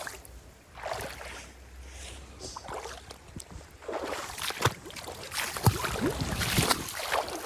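Water splashing and sloshing in uneven rushes, louder in the second half.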